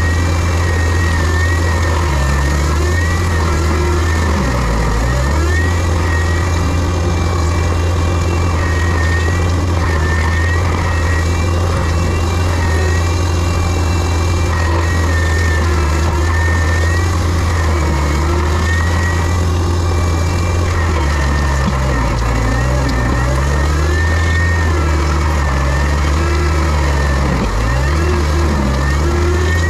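Heavy equipment's diesel engine running steadily, with a high whine wavering in pitch above it and a few brief dips in the engine note as the load changes.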